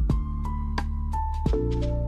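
Soft instrumental background music: notes struck a few times a second over held low tones.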